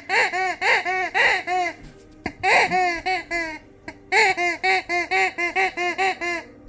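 A dog's rubber squeaky toy squeaked over and over in quick runs, about four or five honk-like squeaks a second, each rising and falling in pitch. There are three bursts, with short breaks about two seconds and four seconds in.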